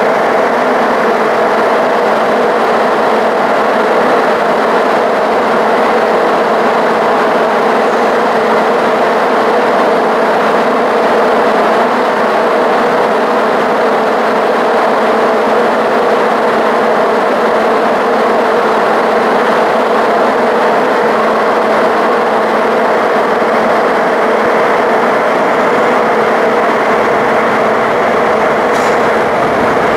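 MTR metro train running at speed through a tunnel, heard from inside the car: a loud, steady running noise of wheels on rail and motors, with a constant drone of held pitches that does not change.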